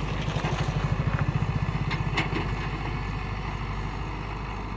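Tata Hitachi 71 excavator's diesel engine running with a fast, even pulse, a little louder in the first couple of seconds. Two sharp clicks come about two seconds in.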